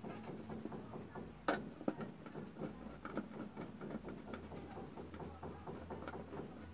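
A screwdriver working the screws of a plastic wall switch and plate: a run of small irregular clicks and scrapes, with one sharper click about a second and a half in.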